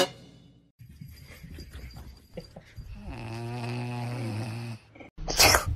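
A sleeping puppy snoring, with one long, steady snore starting about three seconds in. A short, loud burst of noise cuts in near the end.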